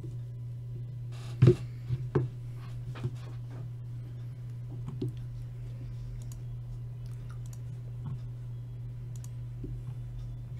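A few sharp clicks and taps at irregular intervals, the loudest about a second and a half in, over a steady low hum.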